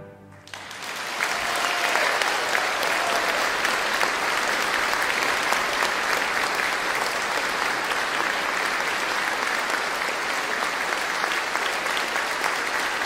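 Large audience applauding, breaking out about half a second in and holding steady, right after the final chord of a piano concerto dies away.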